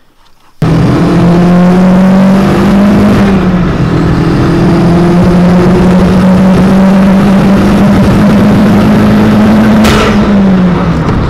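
VW Lupo's swapped 1.8T four-cylinder turbo engine with a GT30 turbocharger, heard loud from inside the cabin under hard driving. It cuts in suddenly about half a second in, climbs briefly and holds a steady high note. Near the end there is a sharp burst and the note drops.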